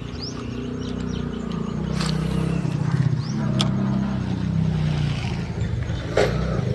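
A motor vehicle's engine running close by, a steady low hum that wavers slightly in pitch. Sharp clicks cut through it three times, the loudest about six seconds in.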